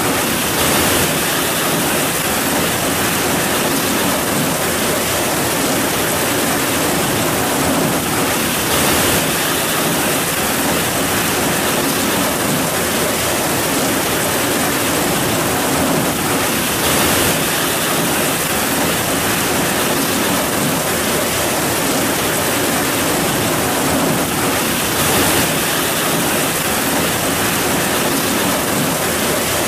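Heavy rain falling steadily, a dense even noise.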